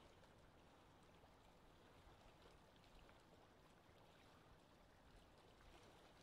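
Very faint, steady water ambience of a lake, an even wash with light wind and a few tiny ticks.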